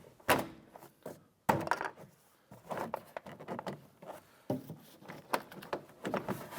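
A Ford Ranger interior door trim panel being pushed up and worked loose from the door, giving a string of sharp knocks and clicks with rubbing between them.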